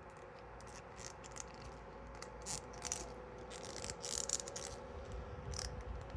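Small hard plastic action-figure parts clicking, rattling and scraping as accessories such as holsters are handled and pressed onto the figure, with a flurry of clicks about two and a half seconds in and another around four seconds in. A faint steady hum lies underneath.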